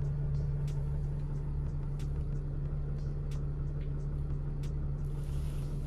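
Mercedes Sprinter 906 diesel engine idling with a steady low hum, heard from the driver's seat, with a few faint clicks.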